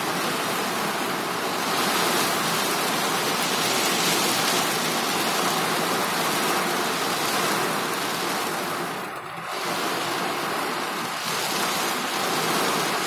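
Heavy downpour on a car's roof and windscreen, heard from inside the car as a steady, loud rush of noise that eases briefly about nine seconds in.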